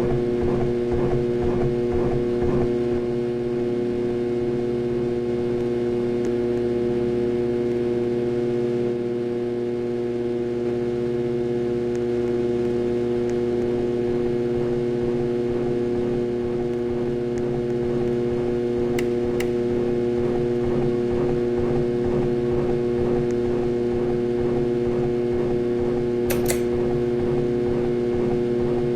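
Harbor Breeze Ocracoke ceiling fan motor running with a very loud, steady hum made of several fixed tones, the sign of a bad motor. The hum pulses rapidly for the first few seconds, then settles, and there are a couple of short clicks later on.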